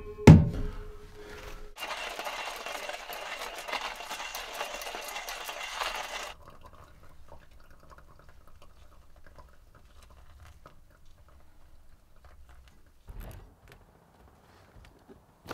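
A knock, then hot water poured from a gooseneck kettle into a pour-over coffee dripper in a steady stream for about four seconds before stopping; faint soft sounds follow.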